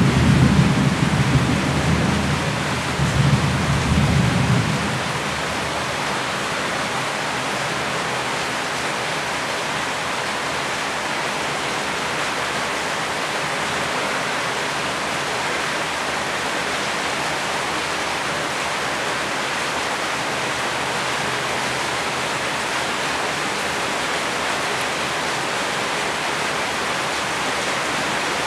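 Steady heavy rain, an even hiss throughout. A low rumble of thunder dies away over the first five seconds or so.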